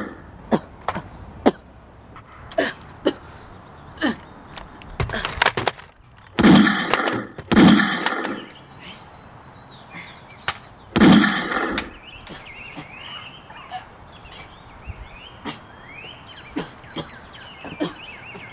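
Nerf Hammershot spring blaster firing: loud sudden pops, two about a second apart some six and a half seconds in and another about eleven seconds in, with lighter clicks and knocks between them.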